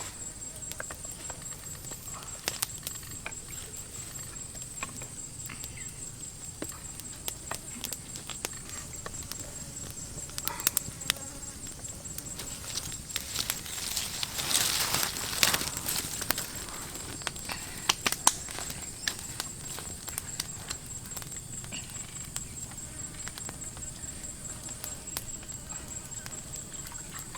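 Steady high-pitched insect chorus, crickets or cicadas, with scattered sharp clicks and a short rustling burst about halfway through.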